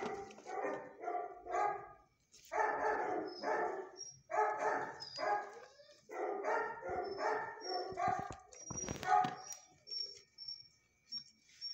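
Dogs barking in a shelter kennel block, in quick runs of several barks with short pauses between. The barking stops about nine and a half seconds in.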